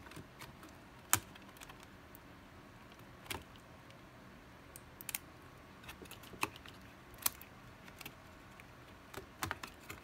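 Scattered light clicks and taps of hands working on an open laptop's insides, pressing and tucking internal cables into place around the motherboard. The loudest clicks come about a second in and just after seven seconds.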